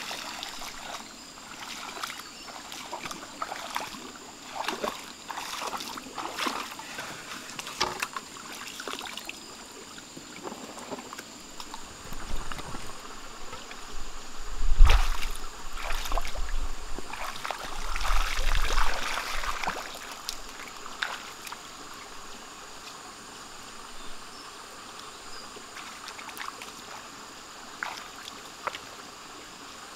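Water splashing and sloshing as a person wades through shallow, muddy water and works with her hands in it. The splashing is loudest and heaviest from about twelve to twenty seconds in. A thin, steady insect drone runs underneath.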